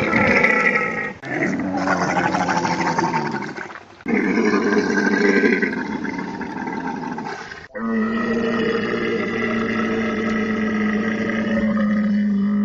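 Camels calling loudly with throaty, pitched growls and roars, in several short clips cut one after another. The last is one long, steady call held at the same pitch for about six seconds.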